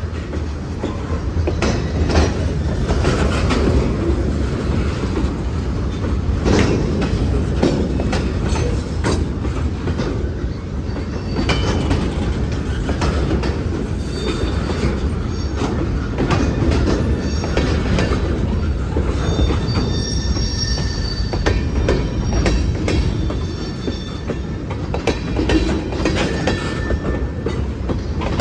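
CSX local freight train rolling slowly through a crossing while switching, its wheels clicking and knocking over the rail joints under a steady low rumble. Wheel flanges squeal now and then, most clearly about two-thirds of the way through.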